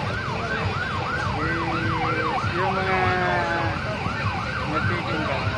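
Siren sounding in a fast yelp, its pitch sweeping up and down about three to four times a second, with a few held steady tones partway through.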